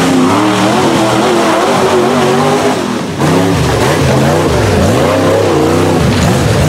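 Tube-chassis rock buggy's V8 engine revving hard up and down, over and over, as it crawls and climbs over rocks. The sound dips briefly about three seconds in, then the revving resumes.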